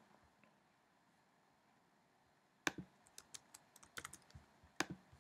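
Near silence, then from about two and a half seconds in a run of irregular computer keystrokes and clicks, about a dozen in all.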